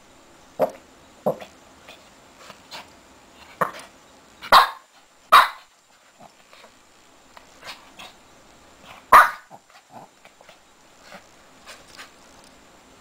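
Shih Tzu puppy giving short, sharp barks and yips at irregular intervals, with a louder pair about halfway through and another louder one later, while squirming on its back in its bed.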